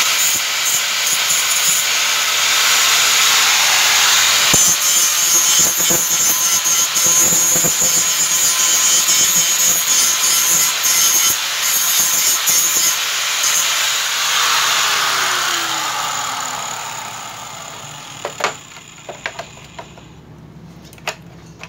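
Handheld angle grinder running and grinding down a small chrome trim piece held against it, a steady rough grinding noise with a high whine. Near the end the grinder is switched off and winds down with a falling pitch, followed by a few sharp clicks of the parts being handled.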